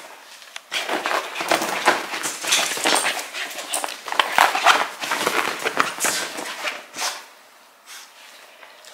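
A small dog moving about on a fabric sofa: irregular rustling and scuffling of fur against cushions. It starts just under a second in and dies down at about seven seconds.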